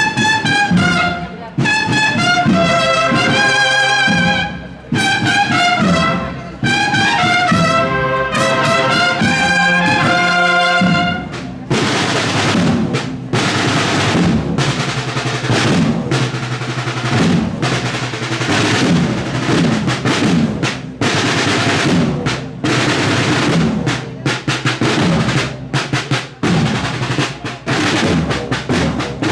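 Brass band playing a march, trumpets carrying a melody; about twelve seconds in the brass stops and the drums carry on alone with rolling snare-drum strokes.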